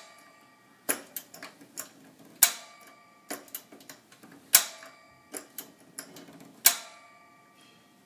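Piezo igniter of a Mr. Heater Big Buddy propane heater snapping as the knob is pressed to light the pilot. There are four sharp clicks about two seconds apart, each with a short ring, and lighter clicks in between.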